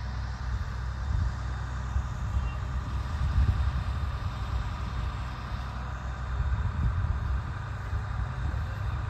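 Komatsu PC130 crawler excavator's diesel engine running steadily, a deep uneven rumble.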